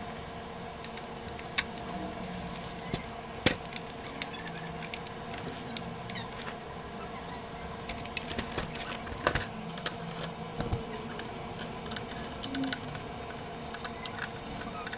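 Scattered small clicks and taps of hands and tools working inside an opened CD changer's plastic and metal mechanism, coming thicker about halfway through, over a steady faint hum.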